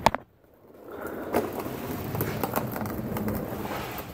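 Irregular rustling and scraping handling noise with scattered light clicks, as a handheld phone is moved about under a pickup truck. It starts with a sharp click, goes almost silent for about half a second, then the rustling picks up again and carries on.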